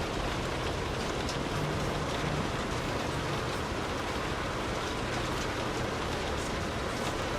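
Light rain pattering steadily on a car's roof and windows, heard from inside the car, with faint scattered drop ticks.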